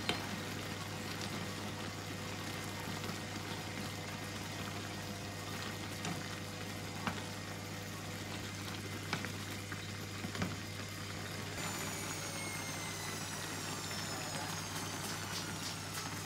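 Kimchi noodle soup simmering and bubbling in a pan, with a few light clicks as wooden chopsticks stir and lift the noodles.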